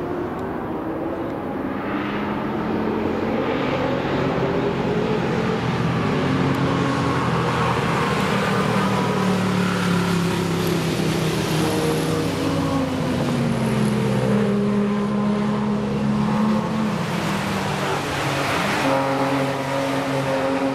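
Cars and a motorcycle passing at speed along a racetrack, their engines overlapping and rising and falling in pitch as they accelerate and change gear.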